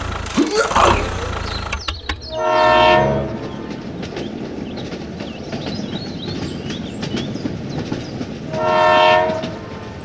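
Train running with a steady clickety-clack rattle, and two long horn blasts, one about two and a half seconds in and one near the end.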